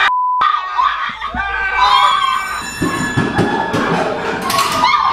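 Excited voices broken by short, steady beep tones, then background music with a run of dull thuds.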